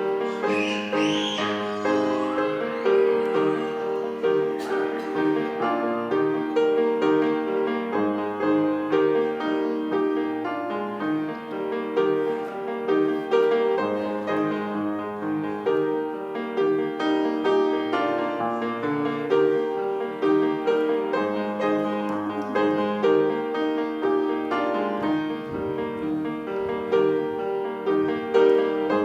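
Piano playing a slow piece of held chords.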